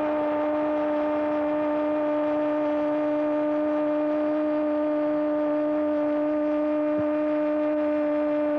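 A football commentator's long, drawn-out goal cry, "Gooool", held as one shout at a single steady pitch without a break.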